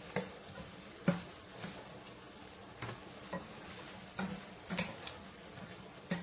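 Irregular light knocks and clinks, about seven of them, as string beans and okra are put into a cooking pot.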